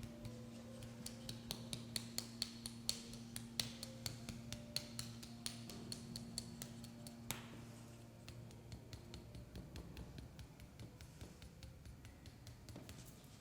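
Rapid light clicks and taps, several a second, over a steady low hum. The clicks are densest and sharpest for the first seven seconds, with one stronger click, then thin out and grow fainter.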